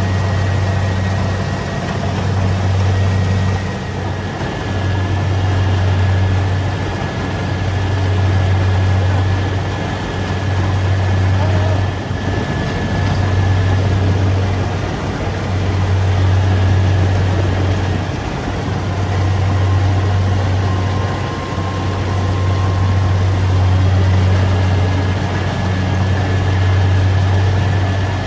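Rice combine harvester running: a steady low engine drone that swells and eases every couple of seconds, with a thin steady high whine over it.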